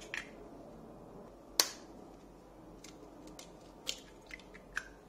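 Eggs being cracked into a glass mixing bowl: a few sharp taps and cracks of eggshell, the loudest about a second and a half in and two more near the end.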